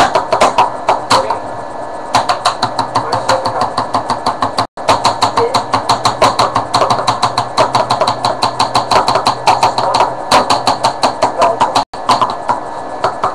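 Fast, uneven tapping and clicking on plastic jar lids and containers, struck with a hairbrush and a lighter as a makeshift drum beat, over a steady hum. The tapping breaks off for an instant twice.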